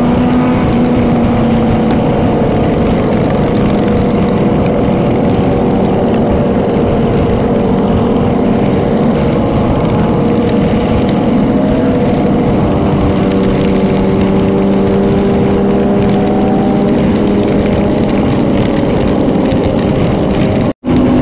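Several motorcycle engines running together at a steady cruise, their pitches mostly holding level with small rises and falls. The sound cuts out for a split second near the end.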